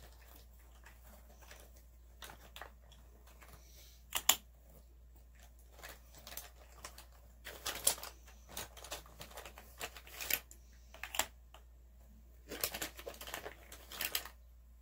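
Makeup palettes and packaging being handled: intermittent plastic rustling and crinkling with sharp clicks, the loudest click about four seconds in.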